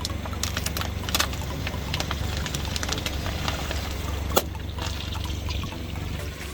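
A car tyre slowly rolling over and crushing objects: many small crackles and pops, with one sharper crack about four seconds in, over a low steady rumble from the car.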